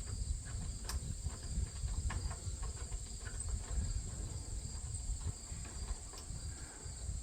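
Crickets chirping steadily over a low rumble, with a few sharp clicks, for example about a second in and again near the end.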